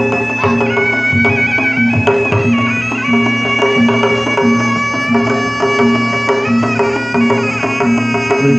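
Traditional Sundanese pencak silat accompaniment music: a shrill, nasal terompet (reed shawm) holds and steps through a melody over steady kendang drum strokes.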